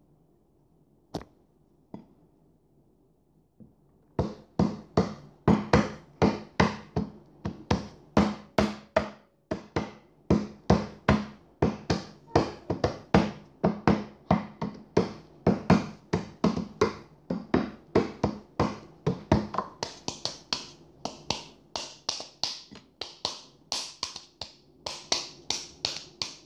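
Hands tapping out a steady rhythm on a hard surface: sharp knocks, about two to three a second, starting about four seconds in after a couple of single clicks.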